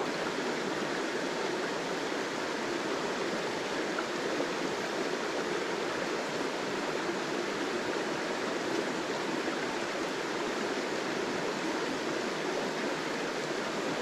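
Small rocky mountain creek running over stones and shallow riffles: a steady rush of flowing water.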